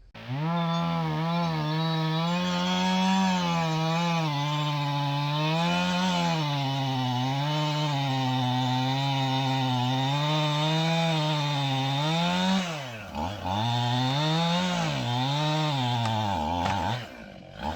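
Two-stroke chainsaw running at full throttle, cutting through a large log, its pitch wavering under the load of the cut. From about 13 seconds in, the revs drop and pick up again a few times before the saw falls quiet near the end.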